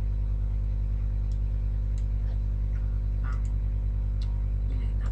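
Steady low electrical hum, a stack of even tones, with a few faint scattered computer mouse clicks.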